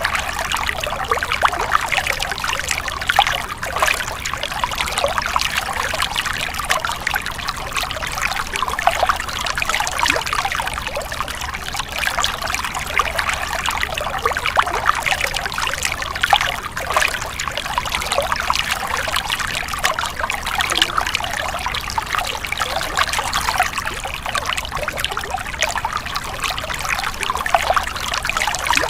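Stream water splashing and trickling continuously, a steady, bubbly rush with many small splashes.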